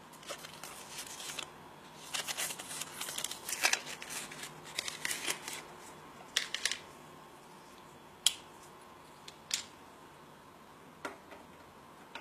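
Plastic blister packaging of a USB flash drive being handled, with bursts of crinkling and rustling, then three single sharp clicks in the second half.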